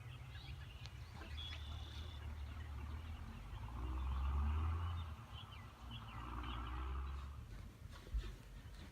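Wild birds chirping and calling, including a brief high whistle early on, over a low rumble that swells twice. A single sharp knock comes near the end.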